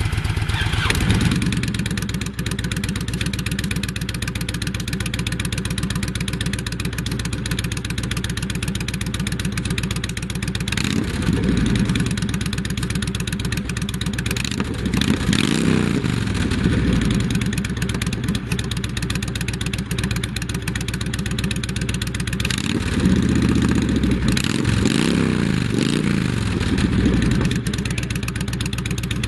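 Honda VTX 1300's V-twin engine idling, blipped up in revs and back down a few times: once about a third of the way in, around the middle, and several times in the last few seconds.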